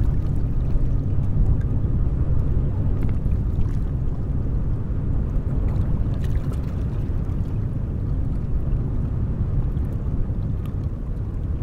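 Steady low rumble of a small river cargo vessel's engine as it passes close by.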